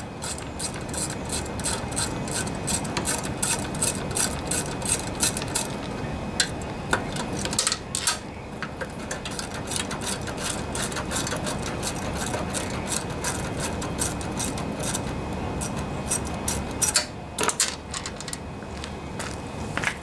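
Craftsman socket ratchet clicking in quick runs as it backs out the engine cover bolts on a Briggs & Stratton mower engine, with a short pause about six seconds in and a few louder clicks near the end.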